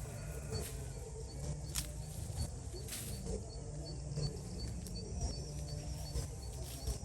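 Rural outdoor ambience: a steady series of short high chirps, about three a second, over a constant low rumble.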